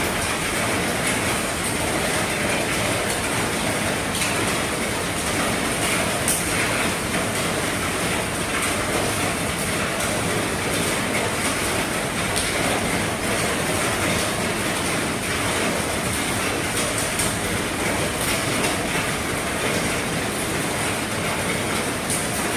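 Heavy rain falling steadily on an RV's roof: a dense, even hiss of rain with scattered sharper drop ticks.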